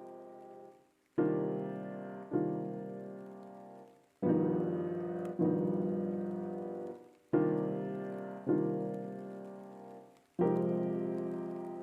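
Background music: slow piano chords, each struck and left to ring and fade before the next, about seven in all.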